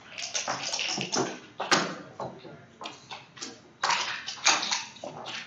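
Backgammon checkers being slid and set down on the board: a run of scraping shuffles and short clicks. The loudest sharp click comes a little under two seconds in.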